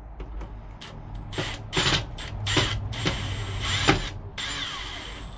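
Power drill driving screws into plastic fittings in several short bursts, each with a high motor whine.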